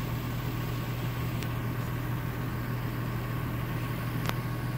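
Vehicle engine idling with a steady low hum, with two light clicks, the second near the end.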